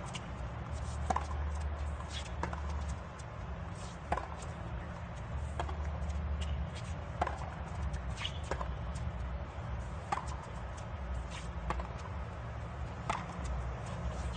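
A tennis ball being hit back and forth with rackets in a long baseline rally on a hard court. Sharp hits and bounces come about once a second over a steady low background rumble.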